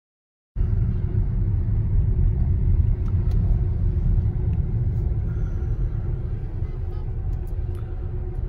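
Low, steady road and engine rumble inside the cabin of a moving car, starting suddenly about half a second in.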